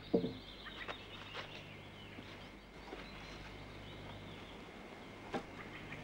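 Wooden knocks of poles being stood upright against the stacked wood of a charcoal kiln: a louder knock just after the start, a few light clicks, and a sharp knock a little after five seconds. A steady low hum runs underneath.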